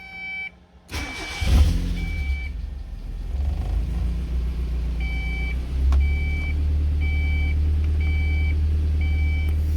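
1990 Mazda Miata 1.6-litre four-cylinder engine cranking and catching about a second in from cold, then idling steadily with a brief rise in revs around the middle. A short electronic beep repeats about every three-quarters of a second over it.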